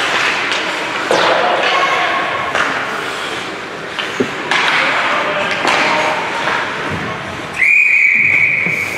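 Ice hockey rink sounds: skates on ice, stick and puck knocks with a sharp crack about four seconds in, and voices calling out in a large echoing hall. Near the end a referee's whistle gives one long steady blast of about a second and a half, stopping play.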